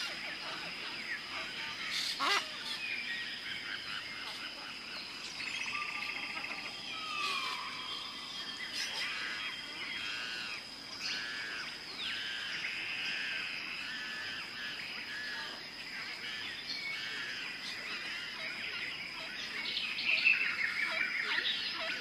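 Jungle ambience: many birds calling and chirping over one another, with warbling and repeated arching calls, over a steady high-pitched whine.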